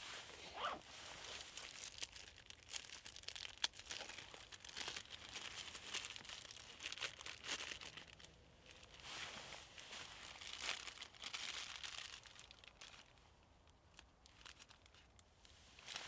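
Dry grass tinder being torn and crumpled by hand to make a tinder nest: a dry, crackly rustle in uneven bursts, growing fainter near the end.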